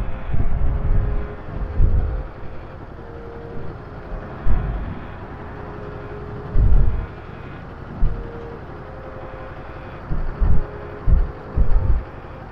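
Kawasaki Ninja 400 parallel-twin motorcycle running at low speed, with irregular low thumps on the camera microphone.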